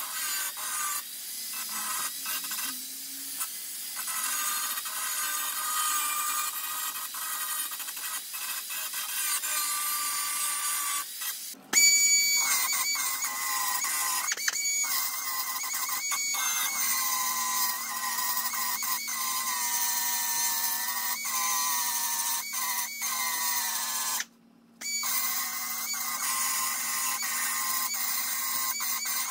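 An angle grinder grinding rusted steel on a car's wheel-arch lip. After a short break about 11 seconds in, a small air belt sander starts with a high, steady whine as it sands the rusted metal, and it cuts out briefly about 24 seconds in.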